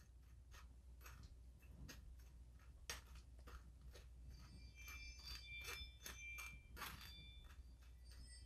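Near silence, with faint scattered clicks and taps. From about halfway in, faint high bell-like tones join them.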